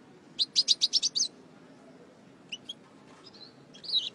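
European goldfinch chirping: a quick run of about eight high chirps within the first second and a half, then a few scattered chirps.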